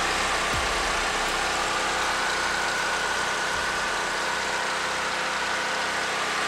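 Chevrolet Tornado's four-cylinder petrol engine idling steadily, with a faint steady high whine over it.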